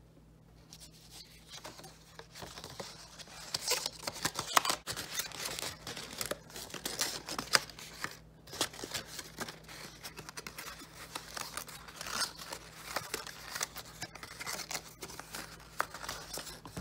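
Card stock paper rustling and crackling irregularly as it is bent and curled into a cone by hand, with sharper crinkles now and then.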